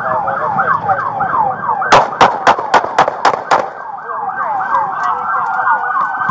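Police car siren yelping rapidly, about three to four sweeps a second. About two seconds in, seven loud gunshots ring out in quick succession over about a second and a half, close by.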